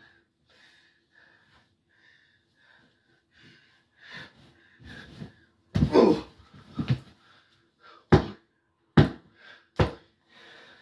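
Heavy breathing and panting, then a loud thump with a grunt as a body lands on a stacked mattress. Three sharp slaps on the mattress follow, about a second apart: a wrestler's three-count for the pin.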